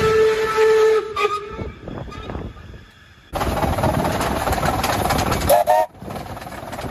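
Steam locomotive whistle holding one steady note, which stops about a second in. After a quieter lull, a loud rushing train noise starts suddenly, with a short whistle blip near the end.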